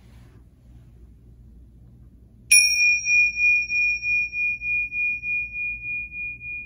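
A pair of tingsha cymbals struck together once, about two and a half seconds in, rung to open a worship service. One high, bell-like tone rings on with a steady pulsing waver and fades slowly, while fainter higher overtones die away within a few seconds.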